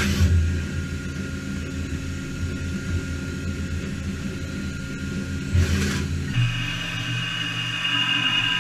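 Matsuura MAM72-35V 5-axis CNC machining center running: a steady low mechanical hum with two short hissing bursts, one at the start and one about five and a half seconds in. About six and a half seconds in, the hum drops out and a steady higher whine takes over.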